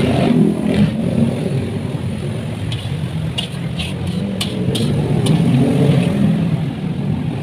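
Road traffic passing close by: vehicle engines rumbling, one swelling louder about five to six seconds in. A few light clicks sound in the middle.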